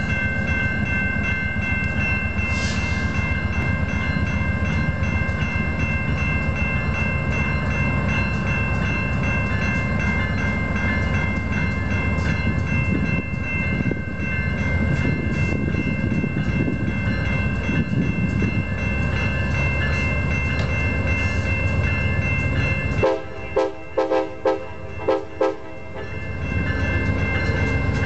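VIA Rail Canada GE P42DC passenger locomotive approaching with its horn sounding long and steady over the engine's rumble. About 23 s in, the horn plays a quick tune of about six short blasts, then the steady sound of the train returns.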